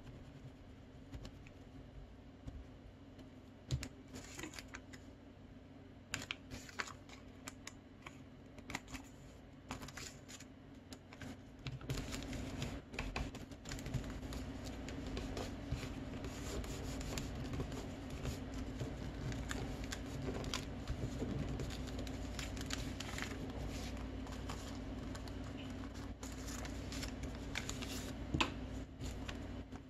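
Folded colour paper being handled, pressed flat and creased by hand, with scattered crinkles and light taps. A steady low hum runs underneath and grows louder about twelve seconds in.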